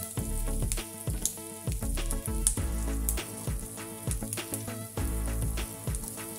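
Background music with a steady beat over the sizzle of chopped vegetables frying in hot oil in a pan, as sliced zucchini and diced bell pepper are pushed in among softened onions.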